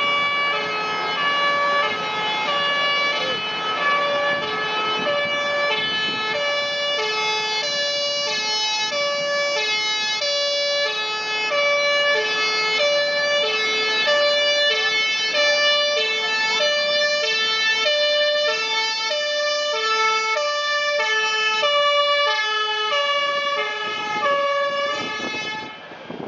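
Fire engine's two-tone siren, alternating steadily between a high and a low note, cutting off near the end.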